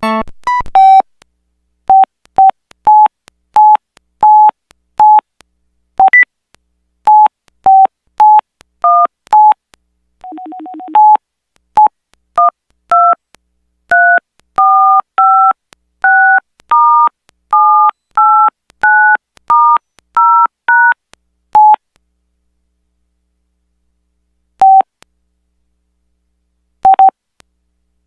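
Samsung SPH-A840 flip phone's keypad beeps. First come a dozen or so short single beeps as keys are pressed, with a brief buzzy tone about ten seconds in. Then comes a quick run of two-note touch-tone (DTMF) beeps, the sound of number keys being pressed, and after that only a few scattered beeps.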